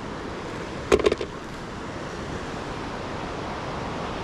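Steady outdoor background noise with a short rattle of sharp clicks about a second in.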